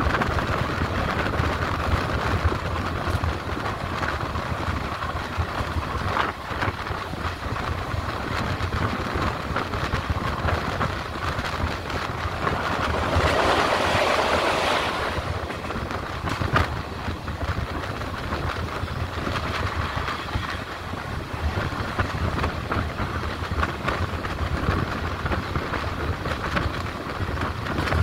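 Passenger train heard from on board, running along the line with a steady rumble of wheels on the track and occasional clicks over rail joints. About halfway through, a louder rush of noise lasts for about two seconds.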